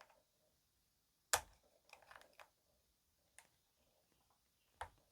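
Scattered clicks and light knocks of tools and metal parts being handled during a chainsaw teardown: a sharp click about a second and a half in, a few softer ones after it, and another sharp click near the end.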